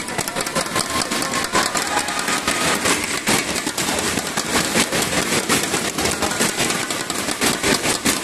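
A crowd clapping and beating inflatable thunder sticks: a dense, continuous clatter of sharp claps.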